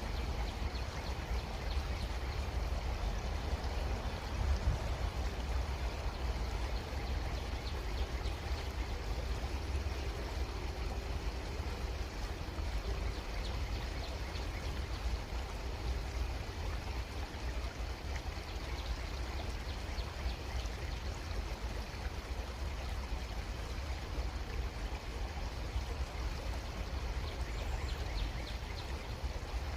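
Creek water running steadily, a continuous trickling babble with a low rumble underneath.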